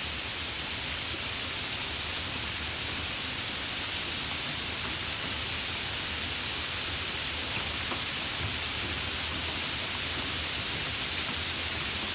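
Steady gentle rain, an even hiss with a few faint drop ticks.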